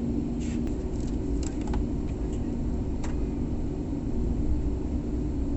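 Airliner cabin noise during takeoff: a steady rush of jet engine and airflow noise with a low hum, and a few light clicks in the first three seconds.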